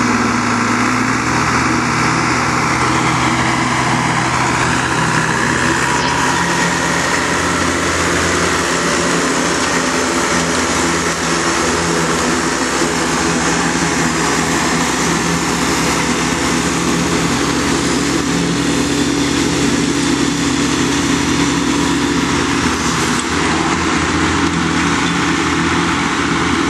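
Large Jacobsen riding mower running steadily while mowing grass, its engine note holding even throughout.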